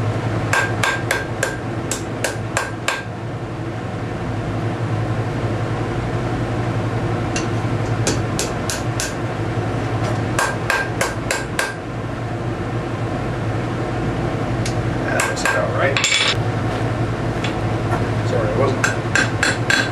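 Blacksmith's hand hammer striking a hot steel S-hook on an anvil to close up its curve, in several quick runs of blows a few seconds apart, each strike with a short ring.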